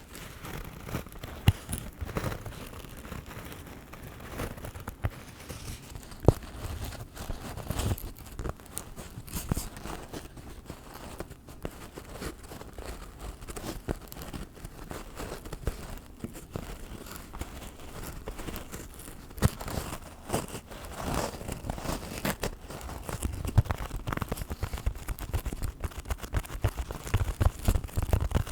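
Long fingernails scratching and rubbing right on a microphone: a dense, irregular run of close, crackly scratches and small taps, with heavier low thumps in the last few seconds.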